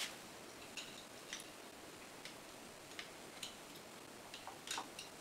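Small, irregular metallic clicks as a retaining screw is started by hand into the brake coil assembly of a Demag ZBV hoist motor; about ten light ticks, the loudest at the start and a close pair near the end.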